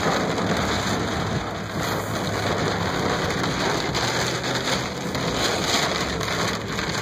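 Heavy thunderstorm rain pelting a car's roof and windshield, heard from inside the moving car as a steady, dense hiss.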